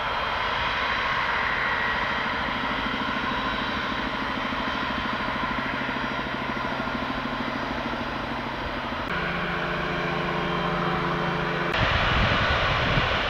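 Antonov An-225's six turbofan engines running at taxi power, a steady hum with several steady tones. The sound changes abruptly about nine seconds in and again near the end, where a heavier low rumble comes in.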